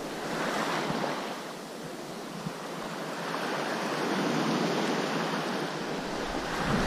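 Small waves washing in shallow surf at the water's edge. The wash swells twice, about half a second in and again for a few seconds after the middle.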